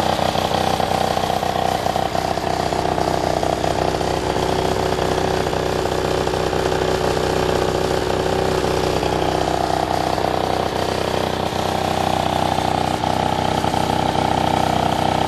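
Peugeot Speedfight scooter's two-stroke engine, built up to 70cc, idling steadily without revving.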